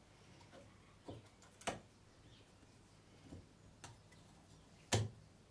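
A few sharp, sparse metal clicks from end-cutting pliers working at small pins in a freshly glued guitar headstock veneer, the loudest about five seconds in, over faint room tone.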